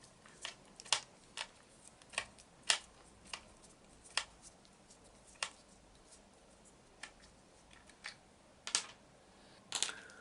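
Irregular sharp clicks and ticks of small plastic RC car parts being handled while the steering assembly is taken apart, about a dozen in all, sparser towards the end.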